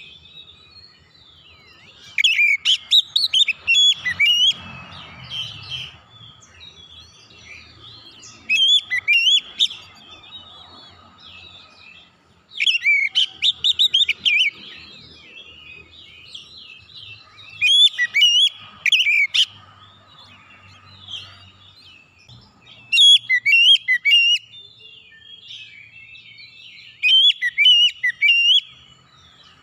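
Oriental magpie-robin singing in about six loud bursts of rapid, sharp, sliding notes, roughly four to five seconds apart, with softer chattering between them.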